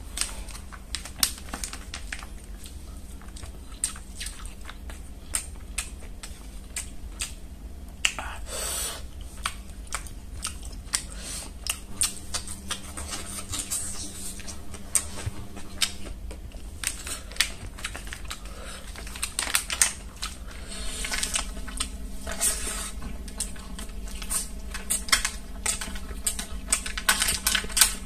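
Close-up eating sounds: wet chewing, lip smacks and many sharp clicks from a mouth full of food, with the rustle of an aluminium foil tray as food is picked up by hand.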